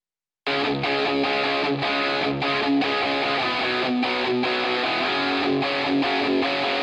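Instrumental music with electric guitar strumming. It starts suddenly about half a second in and then plays on at a steady level.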